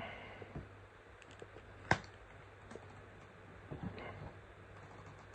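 Faint, scattered small clicks and taps from hands and tools handling the laptop's parts, with one sharper click about two seconds in, over a low steady hum.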